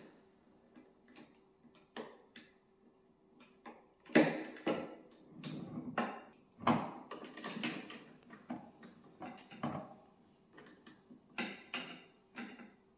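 Metal handlebar tubes and plastic clamp fittings of an electric lawn mower knocking and clicking as the handlebar is fitted together. Irregular knocks and rattles, loudest in a cluster about four seconds in and again a few seconds later.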